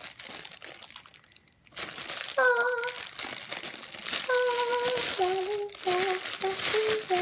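Sticky crinkling handling noise of homemade clay slime being squeezed and worked in the hands. From about two seconds in, a girl hums a tune in a few held notes.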